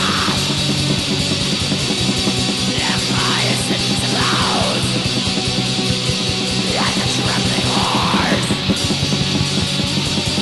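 Black metal recording: distorted guitars and drums in a dense, continuous wall of sound at steady loudness.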